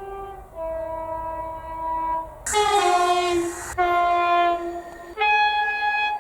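Train horn sounding about four blasts at different pitches, like a tune. The loudest blast, in the middle, slides down in pitch as the train passes.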